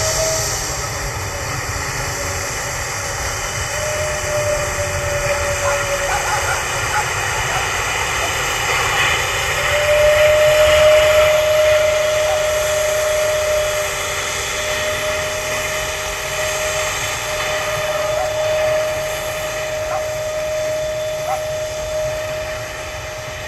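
Airbus A320neo airliner's turbofan engines running at low taxi power as it rolls along the runway after landing: a steady jet rumble with a level whining tone that grows a little stronger about halfway through.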